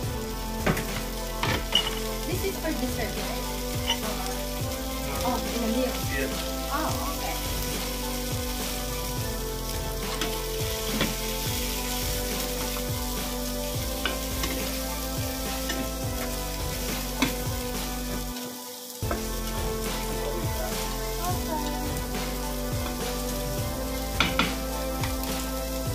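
Green beans sizzling in hot oil and garlic in a skillet as they are stir-fried, with short clicks and scrapes of the spatula and tongs against the pan. The sizzle drops out briefly about two-thirds of the way through.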